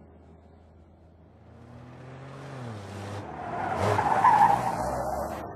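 A car driving past: a swelling rush of engine and tyre noise that builds, peaks about four seconds in, then fades, with the engine's pitch dropping shortly before the loudest point.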